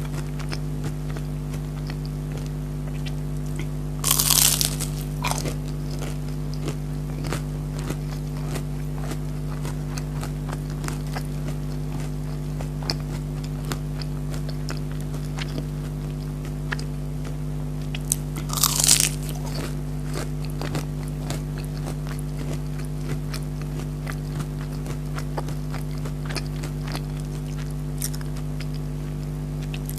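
Close-miked eating of crispy fried chicken nuggets: two loud crunching bites, one about four seconds in and one a little before the twenty-second mark, with soft chewing clicks between them. A steady low hum runs underneath.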